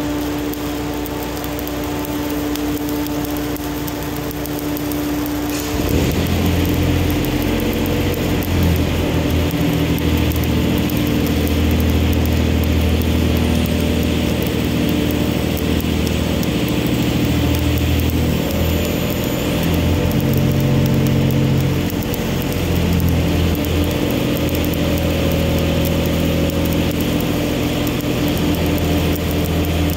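Stick-welding arc crackling and hissing as a Lincoln 308 1/8-inch stainless electrode is run vertical up at about 127 amps. Under it runs a steady machine hum, which shifts in pitch and gets louder, along with the arc hiss, about six seconds in.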